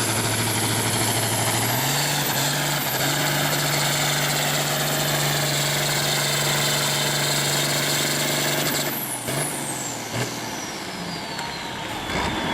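Farm-class pulling tractor's engine running hard at steady high revs, its pitch stepping up about two seconds in. About nine seconds in the engine drops off, leaving a few knocks and a high whine falling steadily away.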